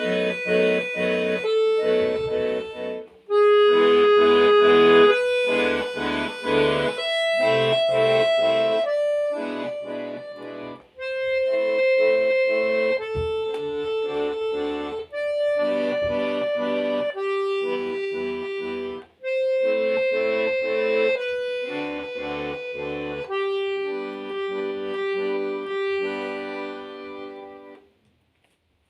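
Bayan (Russian button accordion) playing a slow, singing melody in long held notes over a pulsing chord accompaniment. The phrases are separated by short breaks, and the piece ends on a long held note about a second before the end.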